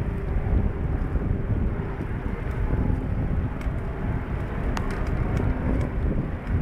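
Wind rumbling on the microphone of a moving bicycle rider, a steady low buffeting with faint street noise and a few light clicks about five seconds in.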